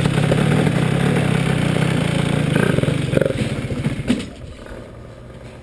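Shifter kart's 80cc two-stroke Honda CR80 engine running loud and steady with a rapid firing rattle as the kart moves off. About four seconds in it drops abruptly to a much quieter, steady low note.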